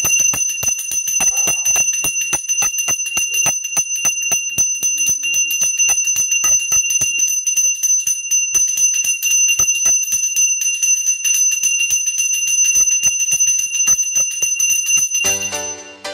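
Puja hand bell rung steadily, about three to four strikes a second, under a sustained high ringing; the ringing stops shortly before the end.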